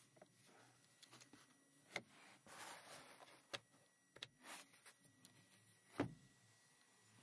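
Plastic clicks and brief scraping from a Toyota Corolla's sun visor being handled: the vanity mirror cover slid open and shut and the visor swung about. The loudest click comes about six seconds in as the visor is pushed back up against the headliner.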